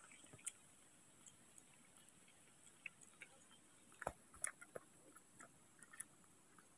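Faint, scattered clicks and smacks of two baby monkeys sucking milk from plastic feeding bottles, with a short run of louder clicks about four seconds in.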